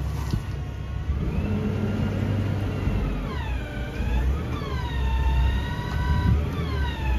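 Engine of a Hangcha 5-tonne LPG forklift with a Kubota engine running as the forklift drives slowly forward, a steady low rumble. Repeated high whines slide down in pitch from about halfway through.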